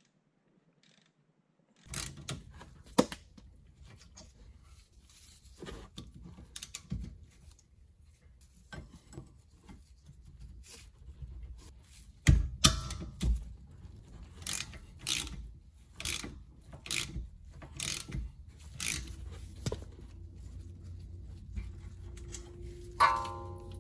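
Spanner and ratchet undoing the slide pin bolts of a rear brake caliper: metallic clicks and clanks starting about two seconds in, coming evenly spaced and louder for a stretch in the middle, with a short metallic ring near the end.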